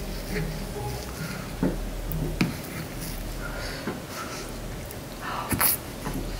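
Close-miked eating sounds: a metal spoon scooping soft whipped-cream roll cake, with soft mouth sounds and a couple of sharp clicks.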